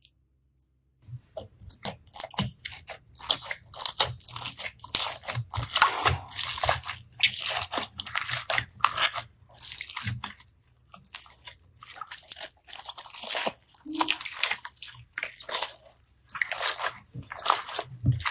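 Glitter slime being kneaded and stretched by hand: a dense run of irregular crackles and squishy clicks, starting about a second in.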